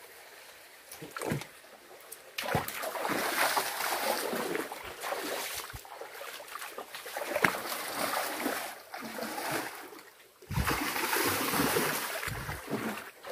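Splashing of bare feet wading through a shallow stream, uneven and irregular. It is quiet at first, sets in about two and a half seconds in, and grows louder again near the end.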